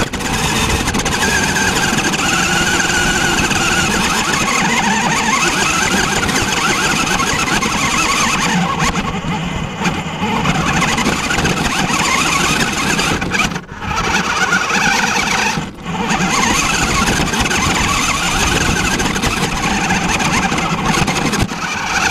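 Radio-controlled car's motor and gears whining as it drives, heard up close from a phone mounted on the car; the whine rises and falls with speed and cuts out briefly twice near the middle.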